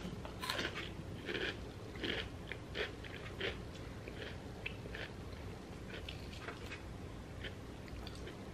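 Eating sounds at the table: close-up chewing mixed with the small tearing and crackling of orange peel being pulled off by hand, a scatter of soft clicks that is busier in the first few seconds.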